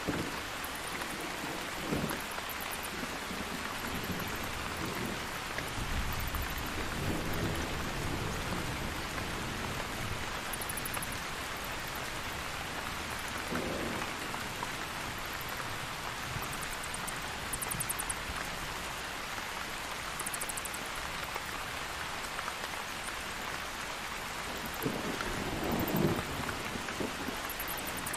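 Steady heavy rain with thunder rumbling several times, the loudest roll near the end. Brief bursts of very high, rapid chittering from bats come and go over the rain.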